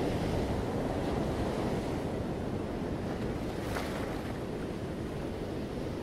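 Sea surf washing onto a rocky shore in a steady rush, with a brief brighter hiss of a breaking wave a little under four seconds in. Wind buffets the microphone underneath.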